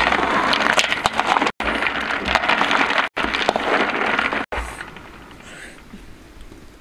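Water at a rolling boil in a large wok of snails and eggs, a loud crackling bubble, with a coconut-shell ladle stirring through it. The sound cuts out for an instant three times, then drops to a much quieter background about four and a half seconds in.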